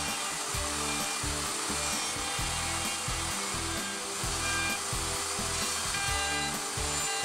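Table-mounted router running, its bearing-guided bit cutting the edge of a hardwood tray blank as it is fed around by hand, with background music.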